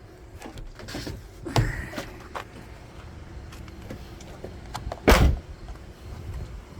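Scattered clicks and knocks with two heavy clunks, the louder one about five seconds in, over a low steady hum.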